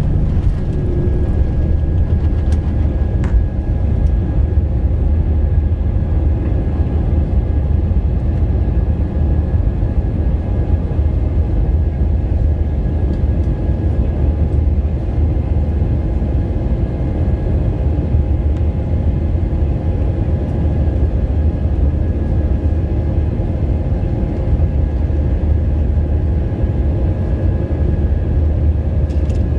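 Airbus A320-232's IAE V2500 turbofan engines at takeoff power, heard from inside the cabin during the takeoff and initial climb. A steady, loud low rumble, with a few faint steady whining tones above it.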